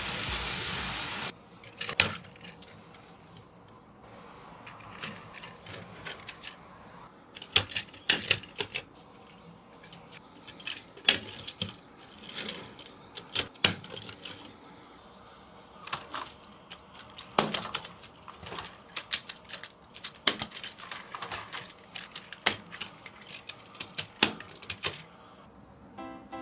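Plastic Plarail toy train cars clicking and knocking as they are handled, coupled together and set onto plastic track: scattered sharp clicks, some in quick clusters. A steady noise cuts off about a second in.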